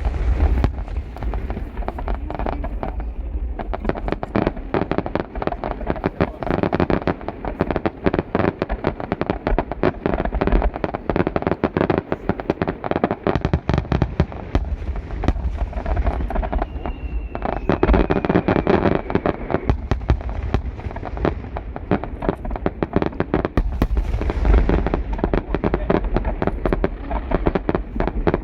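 Aerial fireworks bursting in rapid succession: a dense, continuous string of bangs and crackles, many shells overlapping. A short falling whistle cuts through about 17 seconds in.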